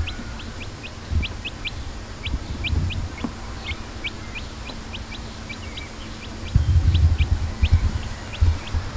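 Small birds chirping repeatedly in short, high, falling chirps, about two to three a second, over a low intermittent rumble that swells about two-thirds of the way through.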